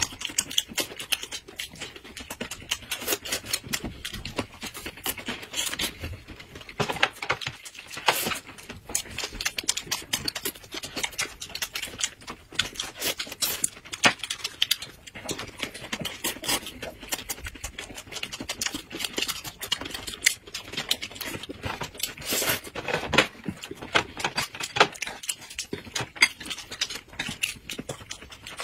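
Eating sounds of two people: close chewing, lip smacks and crisp crunching, with small clicks of chopsticks against plates, in a steady run of short clicks and crackles.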